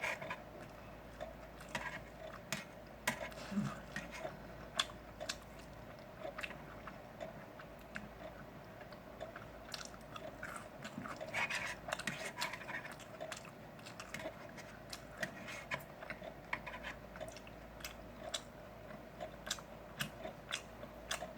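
A person chewing grilled pork belly close to the microphone, with many short, irregular mouth clicks.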